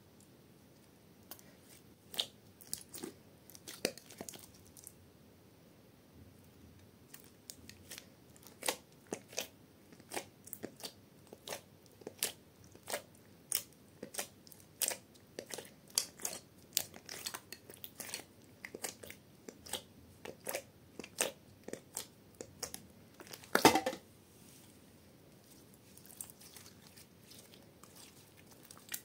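Clear glittery slime with small beads mixed in being kneaded and squeezed by hand, making a rapid run of sticky pops, clicks and crackles. The loudest burst of pops comes about three quarters of the way through.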